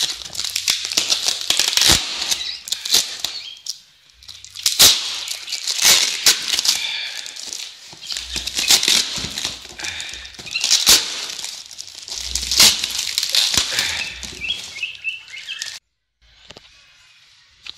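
A cardboard parcel in plastic wrapping being torn open by hand: loud crinkling and rustling of plastic and paper, with many sharp rips and crackles. It cuts out briefly near the end, and quieter rustling follows.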